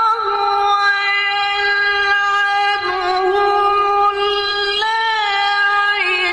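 A qari reciting the Qur'an in the melodic tilawah style, holding one long high note on a single breath without a break. The note wavers briefly around three seconds in and rises and falls again around five seconds in.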